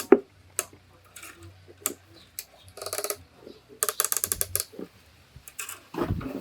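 Wooden tuning peg of a handmade rabeca turning in its pegbox as a new string is wound tight, giving short runs of rapid creaking clicks with a few single knocks between them.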